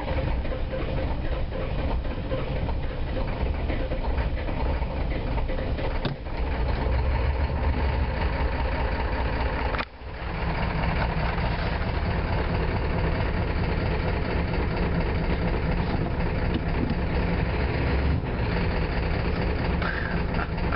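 Ford 7.3L IDI V8 diesel running rough just after a cold start, misfiring on about half its cylinders because of bad glow plugs. Its sound drops away sharply for a moment about ten seconds in, then picks back up.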